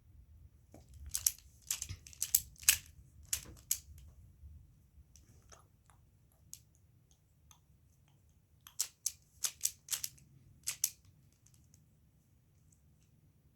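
Plastic clicks of a triangular twisty puzzle being turned by hand, in two flurries of quick turns: one about a second in, another around nine seconds in.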